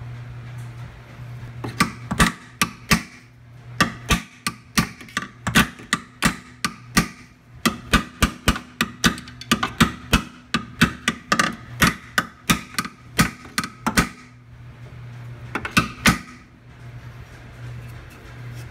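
Hammer blows on a steel vehicle chassis being straightened, about three strikes a second in a long run, each with a bright metallic ring. After a short break, a few more blows follow near the end, over a steady low hum.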